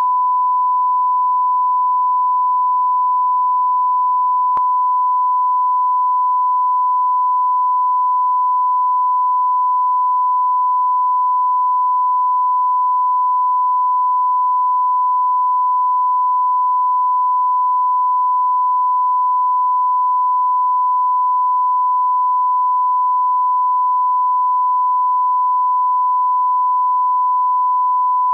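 Broadcast line-up reference tone accompanying SMPTE colour bars at the head of a programme tape: a single pure beep held at one unchanging pitch and level.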